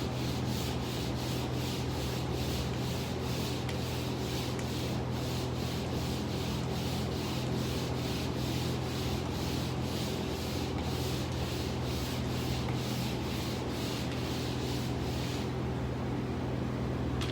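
Pole sander rubbing over drywall patches in steady back-and-forth strokes, about two or three a second, over a steady low hum.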